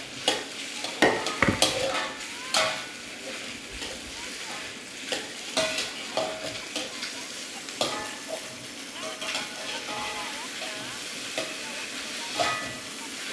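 Fried rice sizzling in a hot pan, with a metal spatula scraping and knocking against the pan at irregular intervals as it is stirred.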